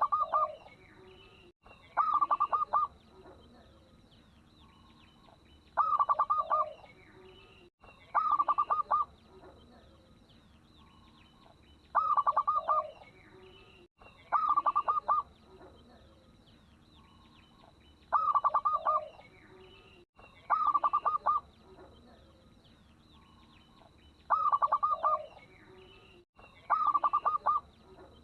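Local zebra dove (perkutut) cooing: short bursts of quick, rapidly repeated coo notes, in pairs about two seconds apart, repeating evenly every six seconds or so. Faint higher chirps and a thin steady high tone sit behind the calls.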